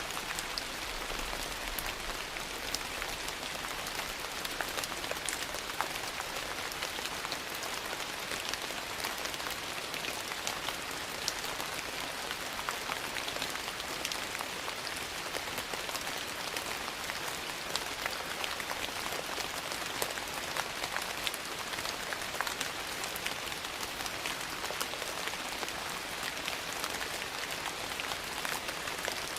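Steady rain falling, an even hiss with many small sharp ticks scattered through it.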